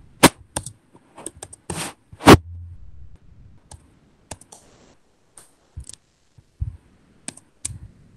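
Computer keyboard typing: irregular, scattered keystrokes, with one much louder click about two seconds in.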